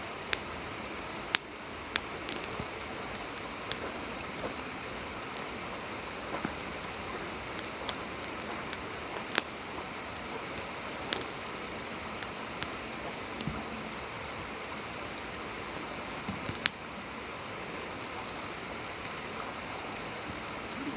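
Wood fire burning in a fire pit: a steady hiss with sharp, irregular crackles and pops of burning wood, the loudest about a second in and again near the end.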